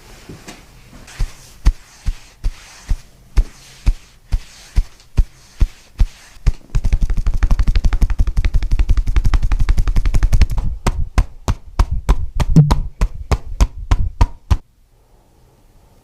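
Rhythmic percussive strikes on a patient's body during a chiropractic massage: evenly spaced thumps about two or three a second, then about four seconds of rapid drumming, then slower strikes again. The strikes stop abruptly a little before the end.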